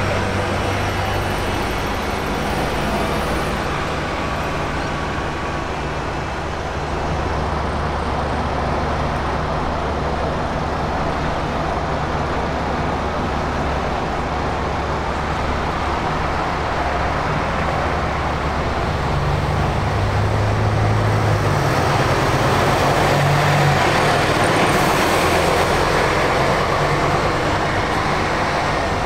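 Bus engines running, with low engine tones that shift as the buses move off. A broad rushing noise swells and grows louder about three-quarters of the way through.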